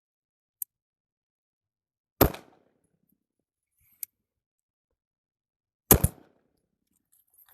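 Two pistol shots from a SIG P320 X5, fired about four seconds apart in slow aimed fire, with a couple of faint clicks between them.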